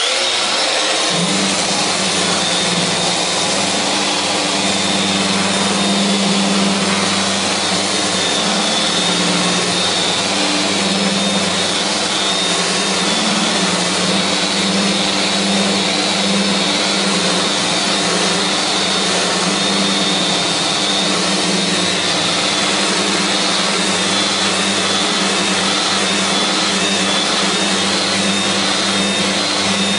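Festool Rotex RO 125 sander running in rotary (disc) mode, 80-grit paper on a hard pad grinding down rough, unjointed purpleheart. A dust extractor draws at full suction through the attached hose. Steady, loud running with a constant hum and a strong sanding hiss.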